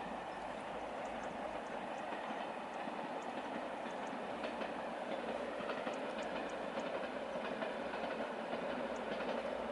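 CP UTD 0600-series diesel railcar running along the line: a steady rumble with faint wheel clicks over the rail joints, slowly getting louder.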